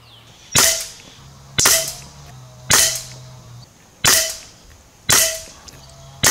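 Gare Falcon fully regulated PCP air rifle fired six times in a row, about one shot a second, each a sharp report that trails off briefly.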